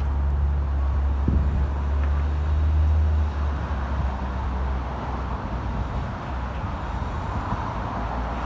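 Outdoor road traffic noise: a low engine rumble that eases off about three seconds in, over a steady hiss.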